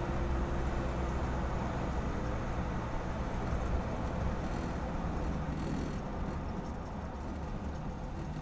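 Isuzu KB300's stock 3.0-litre four-cylinder turbo-diesel engine and exhaust running steadily under way, heard from a microphone under the truck, with tyre and road noise. It eases off a little in loudness near the end.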